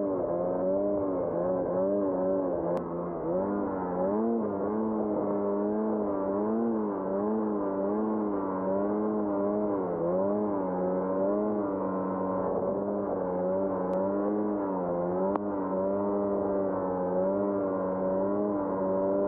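Ski-Doo Summit Expert snowmobile's 850 E-TEC Turbo R two-stroke engine running under way through deep powder, its pitch rising and falling over and over as the throttle is worked.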